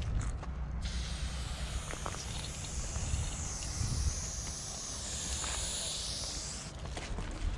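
Aerosol spray-paint can spraying silver chrome paint onto a wall: one long continuous hiss that starts about a second in and stops near the end.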